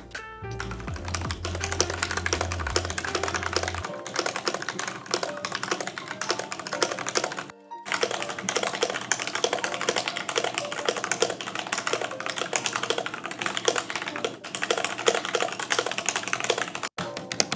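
Fast typing on an Epomaker Theory TH68 65% mechanical keyboard in its stock setup: a dense run of key clacks that stops briefly about seven and a half seconds in and again near the end.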